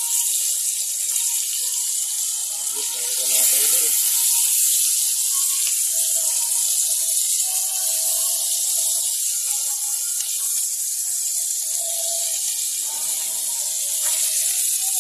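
Small fish frying in hot oil: a steady, loud sizzle.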